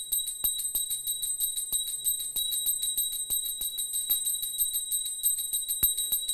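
Small hand-held puja bell rung continuously with quick, even strokes, several a second, keeping up a steady high ring. It is rung at the close of a food offering to the deity, to thank the Lord before the plate is removed.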